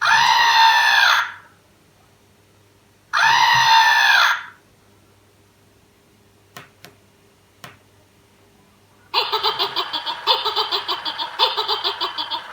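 Red plush monster toy's voice box playing recorded sounds: two loud screams about a second long each, then two faint clicks, then a fast, pulsing laugh for about three seconds.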